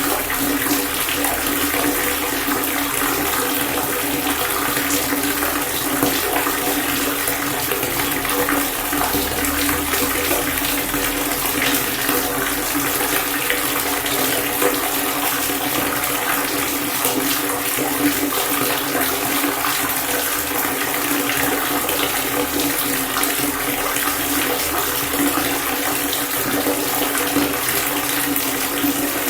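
Water pouring in a steady, continuous stream and splashing, with no change in pitch or level.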